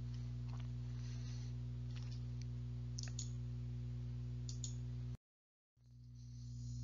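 Low steady electrical hum with a few faint scattered clicks. It drops out to dead silence for about half a second a little after five seconds, then fades back in.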